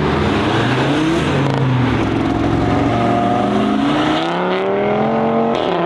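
Classic Volkswagen's engine and exhaust accelerating: a steady note whose pitch climbs for a couple of seconds, then falls away near the end.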